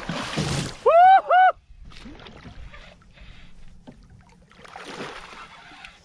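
A big hooked striped bass thrashing and splashing at the surface on the line, a loud splash right at the start, followed by two short, loud calls that rise and fall in pitch. A second, softer spell of splashing water comes about five seconds in.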